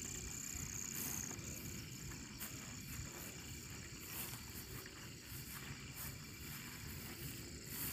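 Night insects trilling steadily: a faint, continuous high tone with faint regular pulses, over a low background rumble.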